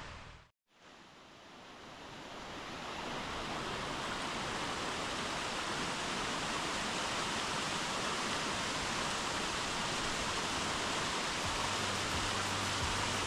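Steady rush of falling water from the Cataract Falls cascades. It fades in after a brief cut about half a second in, then holds even.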